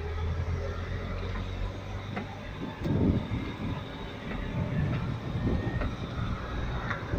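Engine and road noise of a moving vehicle: a steady low hum that turns into a louder, rougher rumble about three seconds in.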